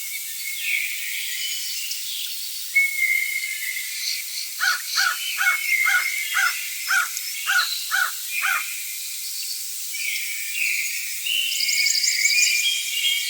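Tropical forest ambience: a dense, steady high-pitched chorus of insects and birds. About four and a half seconds in, an animal gives a run of about nine loud calls, roughly two a second, lasting about four seconds.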